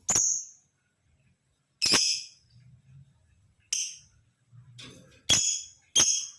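Male lovebird giving five short, sharp, high-pitched calls, a second or two apart.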